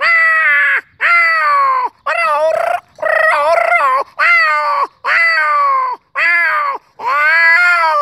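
A man imitating a tomcat and a female cat yowling as they mate: a run of about eight drawn-out yowls, each about a second long and falling in pitch at its end, a few of them wavering.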